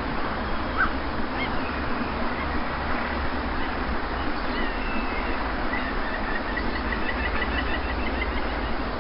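Steady rush of sea waves, with faint bird calls over it and a quick run of chirps starting about six seconds in.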